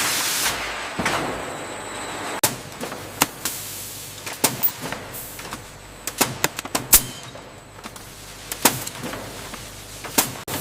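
A string of sharp, irregular clicks and knocks, some close together, over a low steady hiss, with a brief rushing noise at the start.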